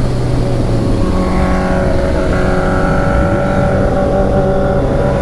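Motorcycle engine running at a steady speed on the move, its pitch creeping slowly upward.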